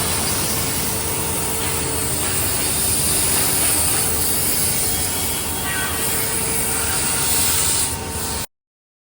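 A 4-axis, 16-spindle CNC wood milling machine cutting wood: a steady rasping cutting noise over a faint steady hum. It stops abruptly near the end.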